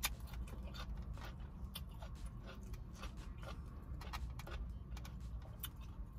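Close-up chewing and mouth clicks, with a fork tapping and scraping a foam takeout clamshell, over a steady low hum.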